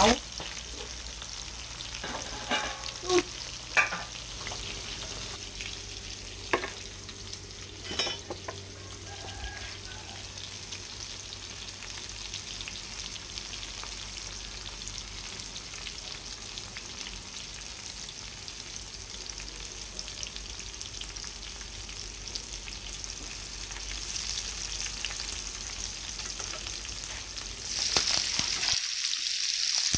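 Hot oil sizzling steadily in a frying pan of seaweed-wrapped vegetarian fish rolls and mushrooms, with a few sharp taps of a stirring utensil against the pan near the start. The sizzle grows louder near the end.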